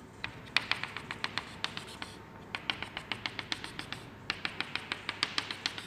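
Chalk tapped against a blackboard, dotting out a curve: quick runs of sharp clicks about seven a second, in three runs with two short pauses.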